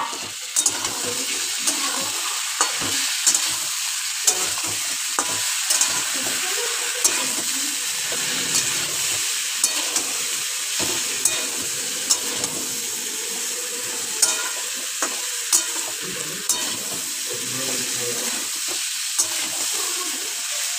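Pumpkin and potato pieces sizzling in oil in a metal kadai as a steel spatula stirs them, with sharp clicks and scrapes of the spatula against the pan every second or so.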